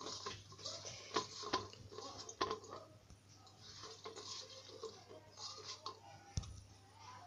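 A hand tossing and squeezing soft idli slices coated in dry spice powder in a stainless-steel bowl: faint, irregular squishing and rustling, with a few light clicks.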